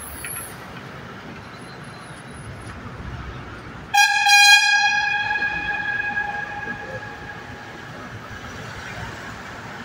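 A vehicle horn sounds abruptly about four seconds in, one steady high note that fades away over the next few seconds. It is heard over the steady road and tyre rumble inside a moving vehicle in a road tunnel.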